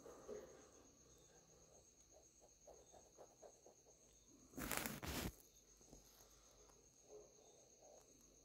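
Near silence, with a steady, high, finely pulsing trill like an insect's, and one brief rustle about five seconds in.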